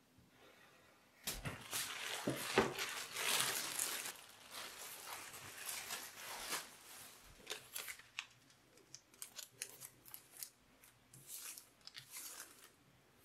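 Thin paper rustling and crinkling as it is handled, loudest for a few seconds after about a second in. It is followed by a run of short scratchy strokes as a pencil traces over the paper onto a leather-hard clay plate.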